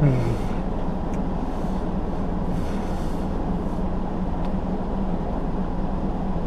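Steady low rumble and hum inside a parked car's cabin, with a few faint ticks.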